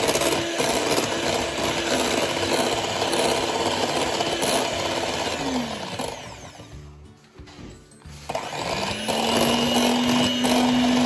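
Electric hand mixer whipping eggs in a glass bowl: a steady motor whir with the beaters churning through the liquid. About six seconds in, the motor winds down with a falling hum and goes quiet. It starts again about two seconds later with a whine that rises in pitch as it speeds up.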